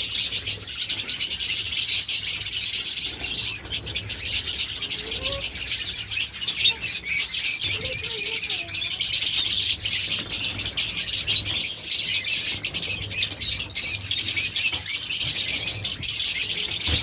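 A flock of caged budgerigars and lovebirds chattering continuously, a dense high twittering with many quick chirps.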